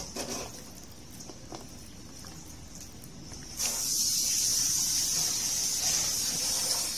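Hand mixing small fish in an egg-and-flour coating in a stainless steel bowl, with soft squelches and light clicks. About halfway through, a loud steady hiss starts suddenly and carries on.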